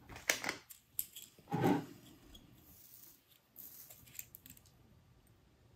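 Faint clicks and rubbing from wires and a soldering iron being handled while wire ends are tinned, with a few short sounds in the first two seconds and fainter ticks around four seconds in.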